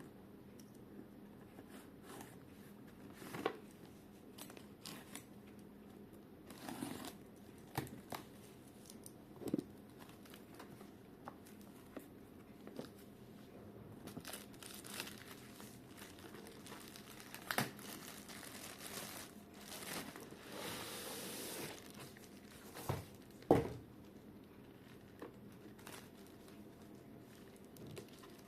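Packaging being handled while a dehumidifier is unboxed: plastic and paper crinkling and tearing, with scattered taps and knocks. A longer stretch of tearing or rustling comes about two-thirds of the way through, followed a few seconds later by the loudest knock.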